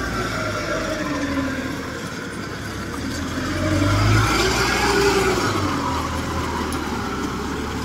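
Engine of a small rice-hauling carrier loaded with sacks of paddy, working under load through deep mud: a steady low hum with its pitch rising to a peak about five seconds in and falling again.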